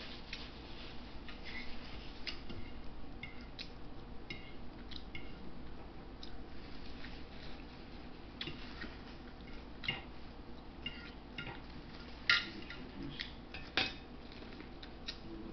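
Close-up eating sounds: chewing and small mouth clicks, paper napkin handling and light clinks on the plate, with a couple of sharper clicks near the end as corn on the cob is bitten into.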